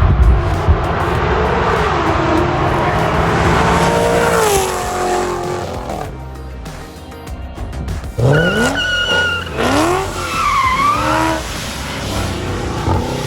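Chevy SS V8 with long-tube headers driven hard. The engine note falls away about four seconds in, then revs climb steeply again about eight seconds in, with a tire squeal.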